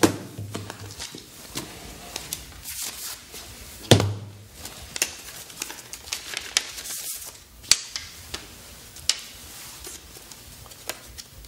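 Paper rustling and crinkling as an envelope, a letter and a slip are handled at a desk, with sharp handling clicks throughout. Two heavier thumps stand out, one at the start and one about four seconds in.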